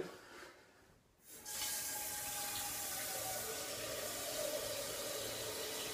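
Kitchen tap turned on about a second and a half in, running steadily into a saucepan as it fills with water.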